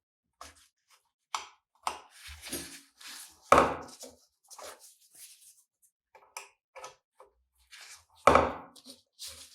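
Hand tools working on the cast-iron sugar cane mill: a run of scattered knocks, clicks and scrapes, with two heavy strikes, about three and a half and eight seconds in.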